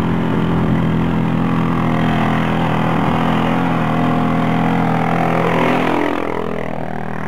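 Quad ATV engine labouring up a steep grassy slope under throttle. It grows louder as the machine comes close, then eases off and drops away about six seconds in.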